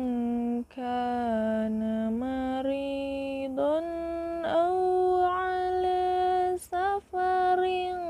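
A woman's solo unaccompanied voice reciting the Quran in melodic tilawah style, drawing out long held notes with ornamented turns and stepping up to a higher held note about halfway through. She breaks briefly for breath about a second in and twice near the end.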